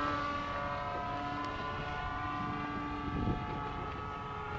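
Radio-control model airplane's engine running steadily in flight overhead, a buzzing note whose pitch sags slightly.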